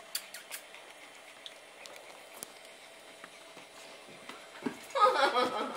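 Faint scattered clicks and light rustling, then a person's voice starts near the end.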